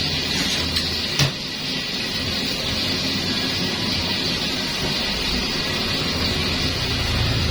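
Steady hiss of food frying in a pan during a stir-fry, with two short sharp clicks about a second in.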